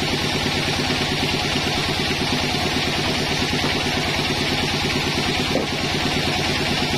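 Engine driving a carriage-type circular sawmill, running steadily with an even, fast pulse and no log being cut. There is one short knock about five and a half seconds in.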